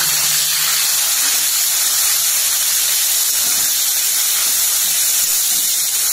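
Chopped tomatoes sizzling steadily in hot mustard oil in a kadai, a continuous even hiss as they fry.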